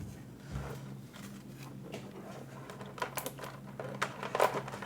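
Pokémon trading cards being handled on a desk: faint light clicks and slides of cards being sorted and shifted, a few slightly louder taps near the end, over a faint steady low hum.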